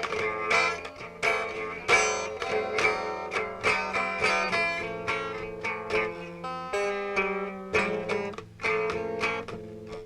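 Instrumental guitar music: a run of strummed and picked guitar chords with sharp attacks, several to the second, with no singing.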